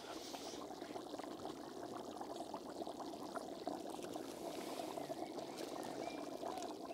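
Pilaf bubbling steadily in a cooking pot: an even, dense crackle of many small bubbles.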